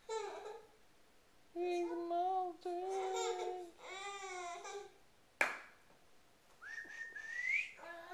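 Baby babbling in drawn-out, high-pitched sounds, four short runs in the first five seconds. A sharp click comes about five seconds in, and near the end a short high squeal rises in pitch.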